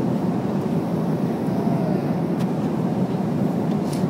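Steady drone of an airliner cabin, engine and air noise heard from inside the plane, with two faint clicks.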